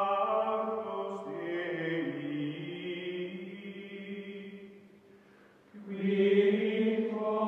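Outro music of long, held chanted vocal notes in a choir-like drone, changing pitch a few times; it fades almost away about five seconds in and comes back louder about a second later.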